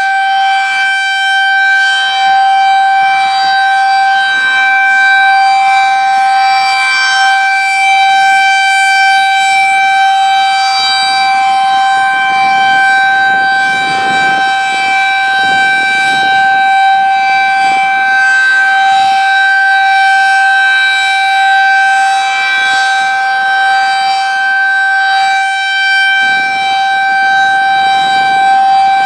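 Federal Signal 2001-SRN outdoor warning siren sounding its steady alert tone: one continuous, unwavering pitch with strong overtones. Its loudness and tone colour shift slightly as the siren's rotator turns it slowly, at about 2.5 RPM.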